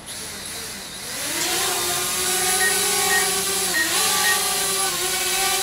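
A sudden hiss comes in, then about a second in the DJI Spark drone's propeller motors spin up: a rising whine that settles into a steady, many-toned buzz and dips briefly in pitch twice.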